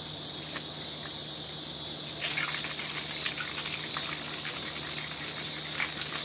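Ice and liquid rattling in a stainless steel cocktail shaker shaken hard, a dense clatter of clicks starting about two seconds in. Crickets keep up a steady high drone throughout.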